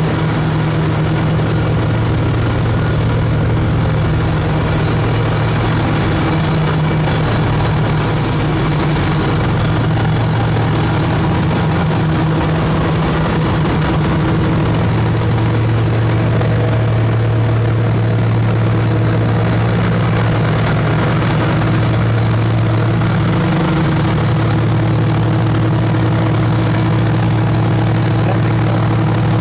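An engine running steadily at an even pitch, a constant low drone.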